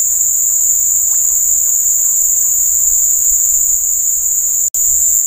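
Loud, steady, high-pitched chorus of insects shrilling, breaking off for an instant near the end.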